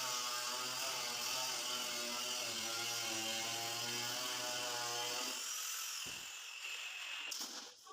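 A steady mechanical hum with a buzz, like a small motor running, that stops about five seconds in, leaving faint hiss and a few clicks near the end.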